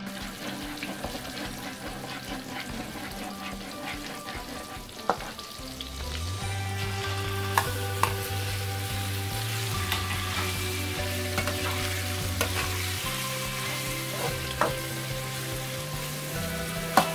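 Sliced beef frying in hot oil with garlic in a metal wok, a steady sizzle that grows louder about six seconds in as more beef goes into the pan. A metal spatula stirring it gives a few sharp clinks against the wok.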